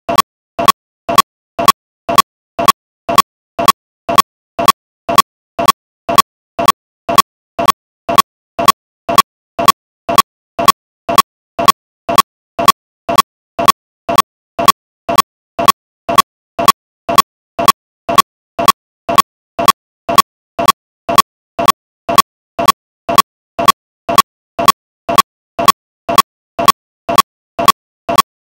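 Steady, very even beat on a small pitched drum, about two to three strokes a second, louder and softer strokes alternating.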